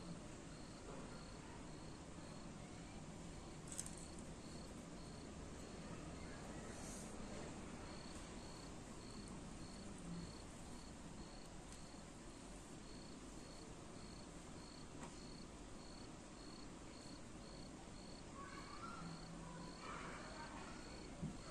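A cricket chirping in a regular rhythm of short, evenly spaced high chirps, over a faint steady hiss.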